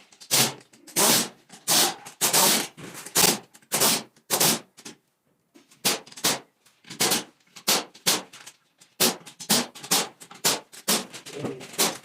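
Ratchet wrench clicking in quick repeated strokes on engine fasteners, about one or two strokes a second, pausing briefly about five seconds in.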